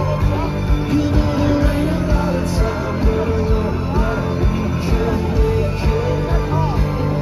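Live rock band playing loud through a large PA, heard from among the crowd: guitars and a steady drum beat with singing over the top.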